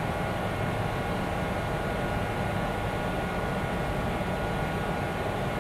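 Steady hum and hiss of a stationary electric train's onboard equipment running, with a few faint steady high tones over it.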